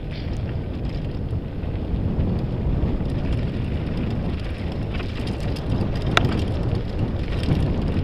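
Mountain bike rolling fast down a loose, stony dirt trail: steady wind rush on the microphone over tyre noise on gravel, with scattered small clicks and rattles from the bike over bumps and one sharp knock about six seconds in.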